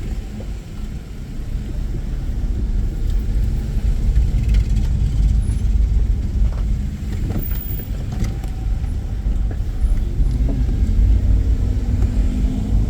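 Car driving on the road: a steady low rumble of engine and road noise that grows louder about four seconds in.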